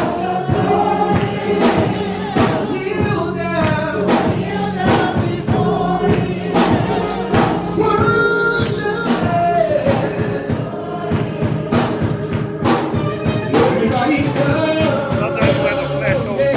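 Gospel music: a choir singing over a drum kit and band, with a steady beat.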